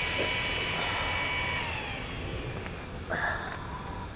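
A steady mechanical whine of several high tones over a low rumble, dropping slightly in pitch about one and a half seconds in and then fading. A brief noisy sound comes about three seconds in.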